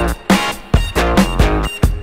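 Background music with a steady beat and pitched instrumental notes.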